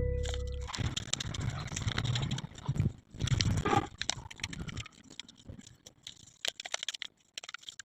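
Paper being handled and torn. Muffled rustling for the first few seconds gives way to a run of small sharp crackles and ticks.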